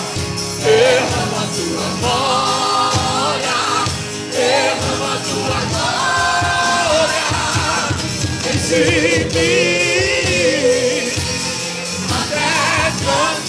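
Live gospel worship music: a group of singers with microphones singing together in Portuguese over a full band with a steady drum beat.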